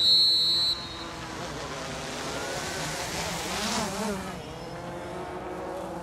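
A sports whistle blown once, a loud, high, steady blast lasting about a second. Then a road vehicle passes, its noise swelling and fading about three to four seconds in.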